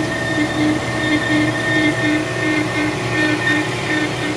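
Manual lathe running in low gear at about 82 RPM while a carbide-insert parting blade cuts into a 4-inch bar of 17-4 H900 stainless steel. It makes a steady mechanical whine with a high steady tone over a low hum that pulses about three times a second.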